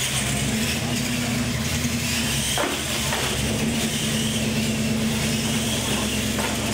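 Radio-controlled monster trucks racing across a concrete floor, their motors whining up and then easing off over a steady low hum. There is a single sharp knock about two and a half seconds in.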